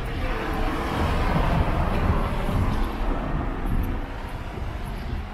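A small hatchback car driving past on a wet street, its tyres hissing on the wet asphalt. The sound swells to its loudest about two seconds in, then eases off.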